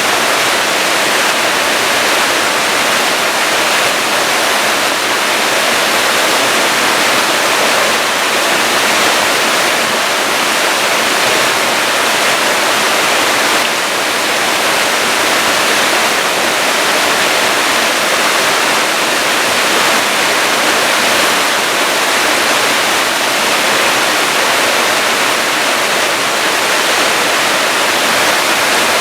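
Waterfall, loud and steady: a constant rush of falling water.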